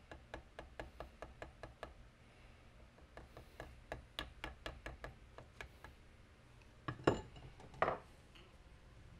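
Light, quick hammer taps on a steel tube held upright in a bench vise, about four a second: one run of about eight taps, a short pause, then a second run of about ten. Near the end come two louder metallic knocks with a brief ring.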